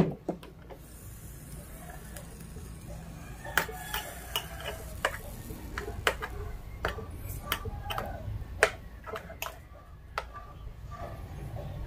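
A metal spoon scraping and tapping against the non-stick plates of a Sonifer SF-6043 waffle maker, clearing away batter that overflowed the plates, in scattered short clicks and scrapes. A sharp click at the very start.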